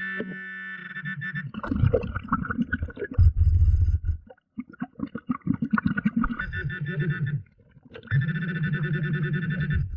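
Handheld pinpointer probe underwater, sounding a buzzing, rapidly pulsing alert tone in stretches as it passes over a metal target, a bottle cap. The tone comes back loudest near the end. Loud low bubbling rumbles fill the gap a few seconds in.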